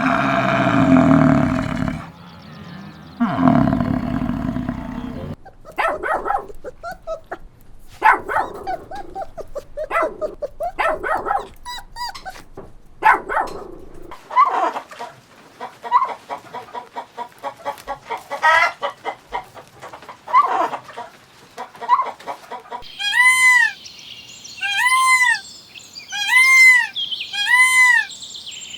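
A series of animal calls: low, drawn-out calls for the first few seconds, then many short calls and clicks, and from near the end a string of identical arching high-pitched calls about one a second.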